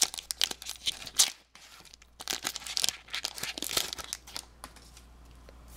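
Foil Pokémon booster pack wrapper being torn open and crinkled: a run of sharp crackles and rips that dies away about five seconds in.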